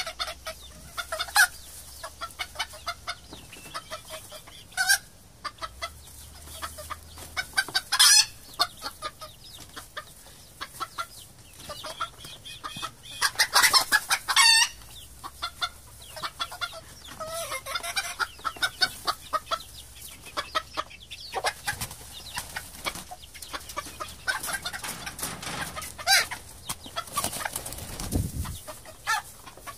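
Domestic chickens clucking: a steady run of short overlapping clucks from several birds, with a few louder, drawn-out calls, the loudest about halfway through.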